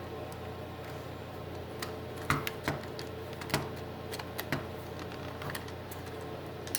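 Irregular sharp plastic clicks and taps, clustered in the middle, as a PS4 controller's plastic shell is handled and worked apart, over a steady low hum.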